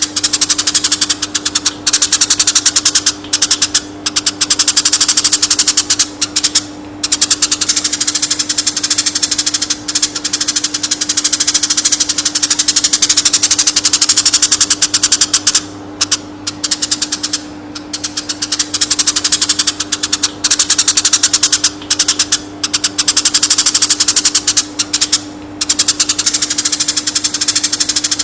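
Eurasian tree sparrows chirping in a fast, dense, almost unbroken stream of short chirps, with brief breaks every few seconds. A steady low hum runs underneath.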